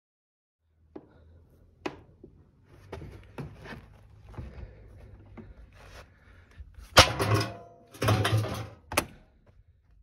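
A series of knocks and clatters over a low hum, with loud thuds about two-thirds of the way in and again near the end.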